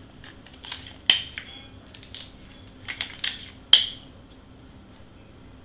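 Tape and cardstock being handled while small paper pieces are taped down: a series of short, sharp crackles and snaps, about half a dozen, the loudest about two-thirds of the way through.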